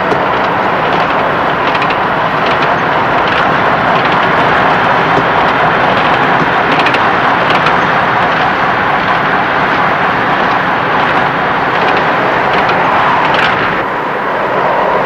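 Steady rushing sound-effects track of a runaway cable car with Thunderbird 2's engines close overhead, with faint clicks now and then and a low steady hum underneath.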